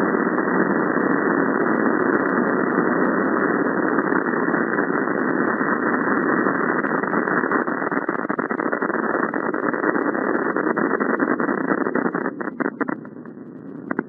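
Loud, harsh static-like noise, dull with no treble and flecked with crackles, as from heavily distorted effects-edited audio; it breaks up and then cuts off near the end.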